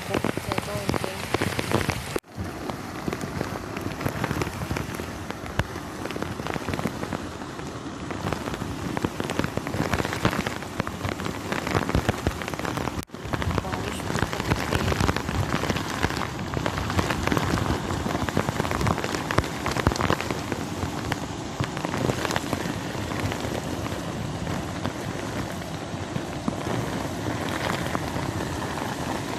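Heavy rain pouring down, with muddy floodwater rushing along a flooded dirt path. The sound cuts out very briefly twice.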